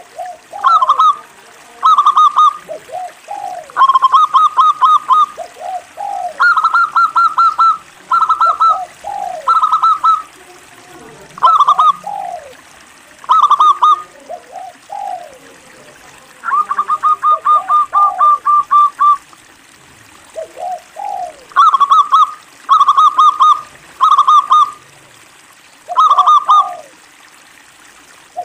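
Zebra dove (perkutut) singing: repeated short phrases of rapid staccato coos, each a quick run of high notes with lower sliding notes, with one longer run about two-thirds of the way through.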